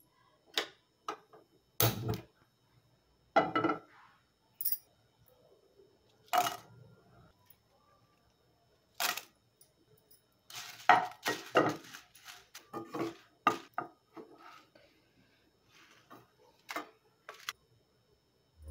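Cookware being handled on a gas stove: a nonstick frying pan and a steel plate knocked and set down, with dried red chillies put in and moved about. It is a series of separate knocks and clatters, busiest in a quick run about halfway through.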